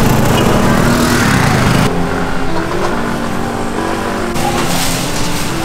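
Busy street traffic noise, with a motor vehicle passing close and loudest in the first two seconds before it eases off.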